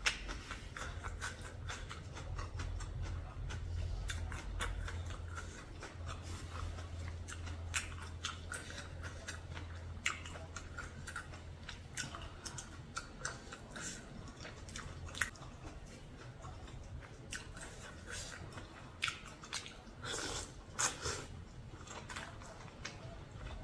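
A person chewing and crunching food close to the microphone, biting through seafood and crisp raw vegetables, in many short irregular crunches. A low steady hum sits under the first half.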